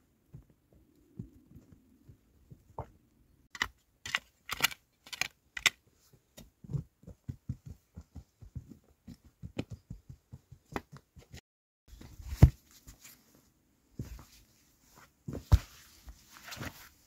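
Boots crunching through snow, then a shovel digging into snowy earth: a run of crunches and scrapes, with two loud thuds in the second half.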